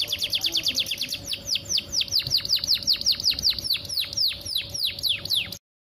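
Domestic canary singing: a fast tour of short repeated chirps, then a run of whistled notes that each sweep downward in pitch, about five a second and slowing slightly. The song cuts off abruptly near the end.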